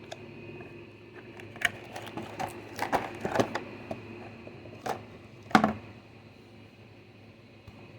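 Cardboard box and packaging being handled as the lamp is pulled out: a scatter of sharp clicks, knocks and scrapes, the loudest a knock a little after five seconds in, then it goes quiet.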